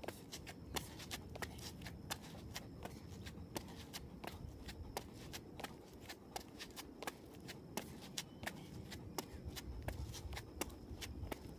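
Sneakers tapping and scuffing on a concrete sidewalk during mountain-climber exercises: quick, irregular clicks, several a second.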